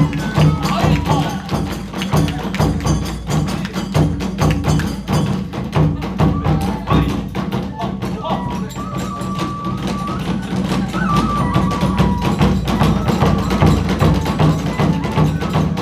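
Kagura hayashi accompaniment: rapid, continuous drum beats and clashing hand cymbals drive the dance. A bamboo flute holds long notes in the middle.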